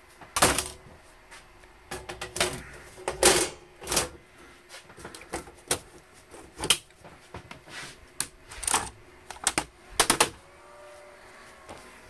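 Sheet-metal top cover of an HP ProLiant DL120 Gen9 1U server being put on and latched, with the case and a keyboard handled: a string of irregular sharp clicks, knocks and clunks.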